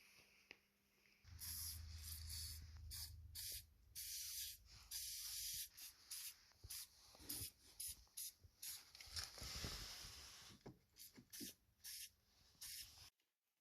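Many short, irregular bursts of hiss over a low hum, starting about a second in and cutting off suddenly near the end.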